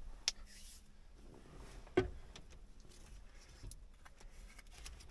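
Wires and connectors being handled: faint rustling with scattered small clicks and taps, and two sharper knocks, one about a third of a second in and one at about two seconds.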